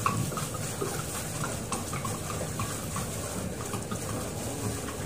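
Water splashing and trickling in many small, irregular splashes, over a low steady rumble.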